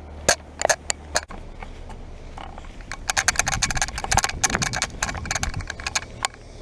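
Carrier heat pump outdoor unit running in cooling mode, a steady low hum. Over it come many sharp clicks and crackles, thickest about halfway through.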